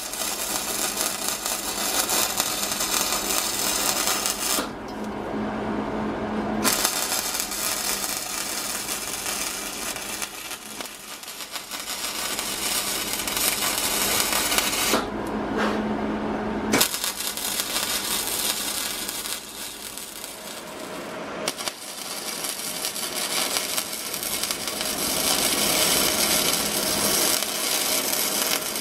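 Wire-feed welder arc crackling steadily as weld beads are run on a metal bracket. The arc stops twice, about 5 and 15 seconds in, for a second or two between runs.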